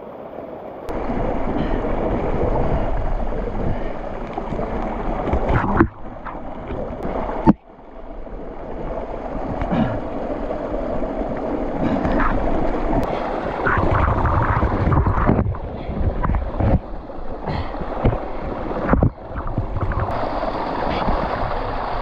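Stream and waterfall water rushing steadily and loudly, with a few short knocks and scrapes close to the microphone. The rush breaks off abruptly and resumes several times.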